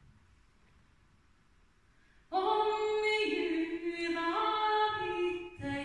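A woman's voice singing a Swedish folk song unaccompanied, coming in about two seconds in after a near-silent pause and moving between held notes.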